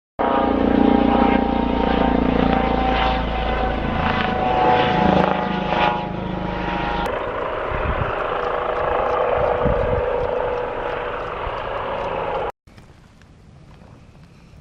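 Air ambulance helicopter running loud and close, its rotor and engine drone steady. It cuts off abruptly about twelve seconds in, leaving a much quieter background.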